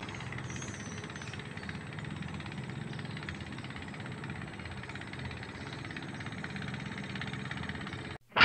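A steady, low engine hum that cuts off suddenly near the end.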